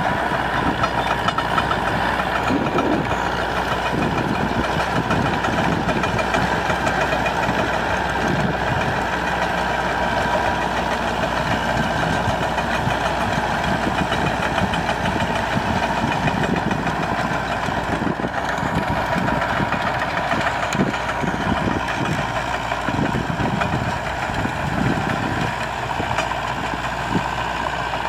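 Massey Ferguson tractor's diesel engine running steadily under load while its rear rotary tiller churns dry soil.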